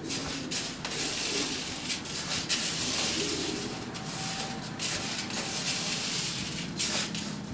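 Mixed pigeon-feed grain being stirred with a spoon in a plastic bucket: a steady grainy rustling and scraping in irregular strokes. The seeds are coated with a garlic and olive oil mixture.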